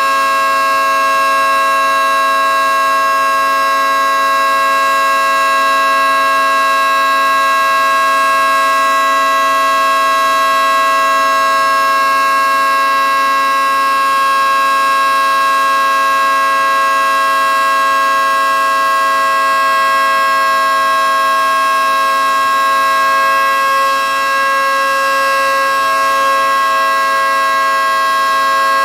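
Federal Signal 2T22B electromechanical dual-tone outdoor warning siren sounding a loud, steady two-tone chord at full speed, its alert signal during a full test, with a slight dip in level about 24 seconds in.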